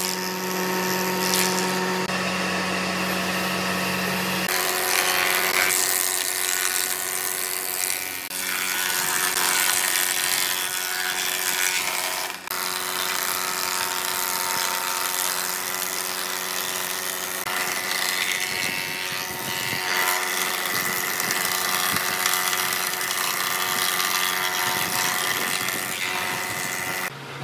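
A combination jointer/thickness planer is running, its cutterhead planing wooden boards as they feed through. The cut makes a dense, noisy sound over a steady motor hum.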